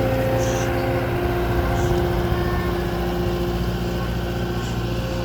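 Engine of a large construction machine running steadily at an even speed.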